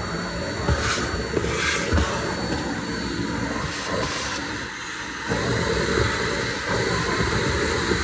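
Vacuum cleaner running steadily, its hose and extension wand drawn over a car trunk's carpet and plastic side trim, with a few short knocks of the nozzle. Briefly quieter about five seconds in.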